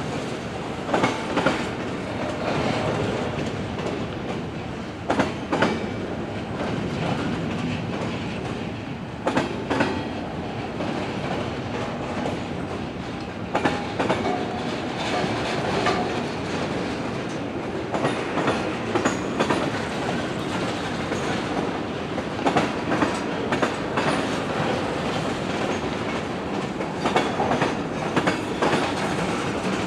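Freight train rolling along with its wheels clicking and knocking over the rail joints at irregular intervals.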